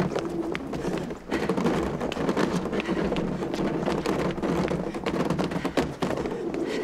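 Hurried footsteps on pavement with a wheeled suitcase rolling behind: a continuous rumbling rattle with irregular sharp taps through it.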